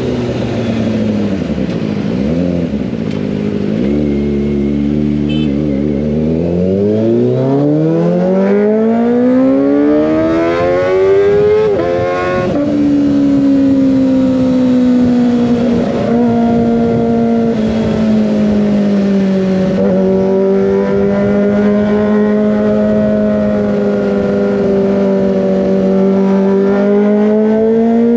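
Kawasaki ZX25R inline-four engine through an Over Racing GP-RS full-system exhaust, under way. It runs at low revs at first, then the revs climb steadily for about six seconds and drop sharply at an upshift about halfway through, after which it holds a steady cruise with small rises and dips.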